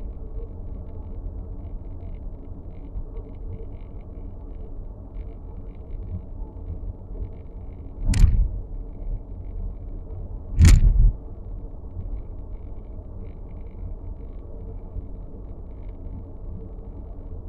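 Inside the cabin of a 2023 Nissan X-Trail e-POWER on the move: a steady low road rumble with faint, irregular light ticks, the dashboard noise being recorded. Two loud thumps come about eight and ten and a half seconds in.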